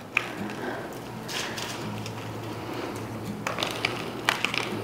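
Plastic microwavable tubs and breaded fish pieces being handled: scattered light taps and clicks, more of them near the end, over a low steady hum.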